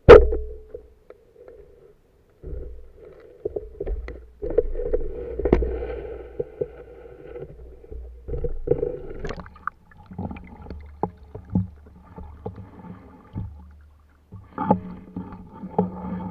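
Muffled underwater sound through a camera's waterproof housing: low rumbling water movement with scattered clicks and knocks, opening with one sharp knock. It grows louder again near the end as the diver moves up through bubbling water.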